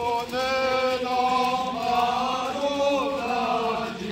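A group of Easter riders on horseback singing a slow processional hymn in unison, with long held notes that change pitch slowly.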